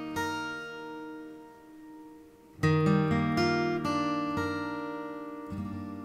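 Background music of acoustic guitar: chords plucked and left to ring out and fade, with a fresh, louder chord about two and a half seconds in.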